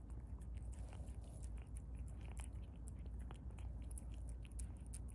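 Domestic cat licking and chewing wet cat food from a can: a quick, irregular run of small wet clicks and smacks over a low steady hum.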